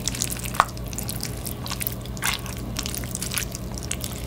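A spoon stirring and mixing rice with snow crab and sesame oil in a bowl, close up: wet, sticky squishing with small scattered clicks, one sharper click about half a second in.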